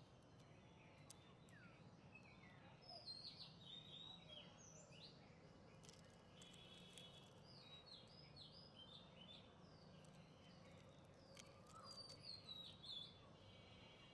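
Faint birdsong: birds chirping in short, repeated calls, some falling in pitch, with two brief trills, over a low background hiss and a few faint clicks.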